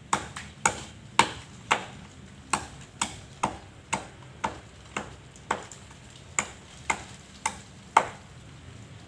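A blade chopping into a coconut palm trunk: about sixteen sharp blows, roughly two a second, each with a short ringing echo. The blows stop about a second before the end.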